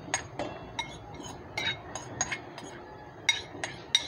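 A ceramic bowl and a spoon clinking against each other and the rim of a stainless steel cooking pot while pre-cooked bamboo shoot strips are scraped out of the bowl into the pot: about ten irregular, short, ringing clinks, the loudest near the end.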